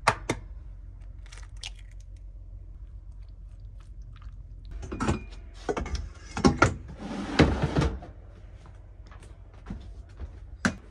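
Kitchen food-prep handling: sharp clicks and knocks of dishes and utensils, with a few short rustling, scraping noises in the middle, the longest lasting about a second.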